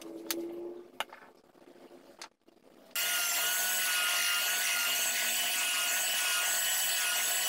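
Belt sander, mounted upright in a stand, running steadily with a thin whine while a small wooden piece is pressed against its moving belt. It starts abruptly about three seconds in, after a few faint clicks from small wooden pieces being handled.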